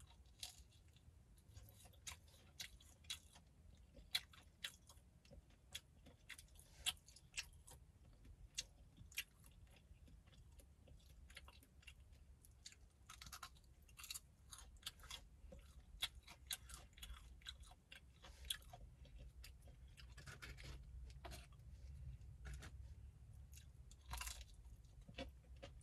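Close-up chewing of a crispy fried chicken strip: soft, irregular crunches and mouth clicks, with a low steady hum underneath.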